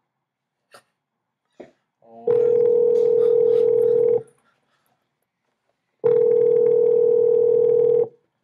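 Ringback tone of an outgoing phone call: the line ringing twice at the far end, each ring a steady low tone about two seconds long, about two seconds apart, before the call is answered. A few faint clicks come just before the first ring.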